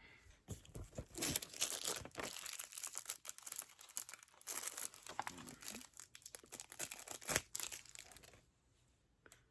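Plastic packaging being crinkled and torn open by hand, an irregular crackling that stops near the end.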